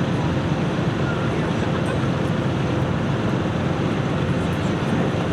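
Hot farm pulling tractor's diesel engine running flat out under load, a steady loud drone.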